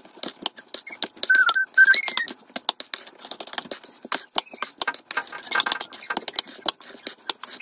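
A metal utensil stirring cod pieces in a spice marinade in a stainless steel bowl: a run of quick clinks and scrapes of metal on steel, with a couple of short squeaks about one and a half to two seconds in.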